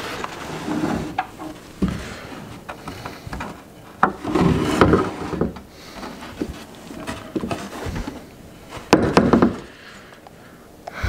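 Wooden fence-picket boards handled on a wooden tabletop: scattered knocks and bouts of wood scraping and rubbing as a board is shifted into place, loudest about four and nine seconds in.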